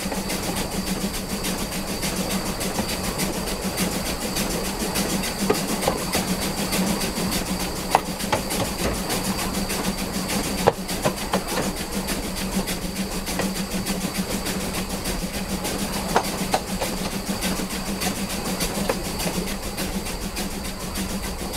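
Steam locomotive 'Spreewald' running uphill: a steady, fast, even churn of exhaust and running-gear clatter over a constant hum, with a handful of sharp clicks and knocks in the middle stretch.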